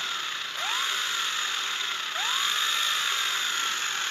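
Worn radiator/AC condenser cooling-fan motor running noisily, its whine jumping up quickly then slowly falling, twice, over a steady harsh hiss: the noise of dry, worn bushings that need lubrication.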